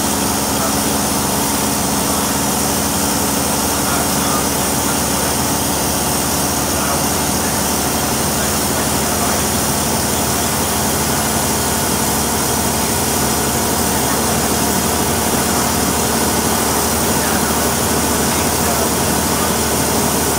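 Diesel engine and road noise inside a moving Volvo B6BLE single-decker bus, a steady running drone with a low hum that fades about halfway through.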